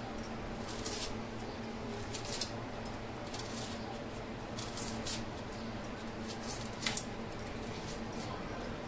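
Onion skins crackling in scattered faint clicks as onions are peeled by hand, with one sharper click about seven seconds in, over a steady low hum.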